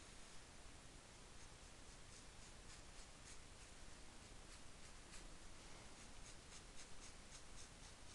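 Faint scratching of short, quick strokes drawn by hand on T-shirt fabric, coming thicker in the second half.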